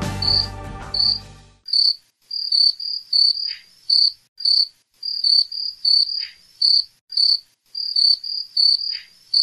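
Background music fades out about a second and a half in. Crickets then chirp in short, high chirps, about two a second.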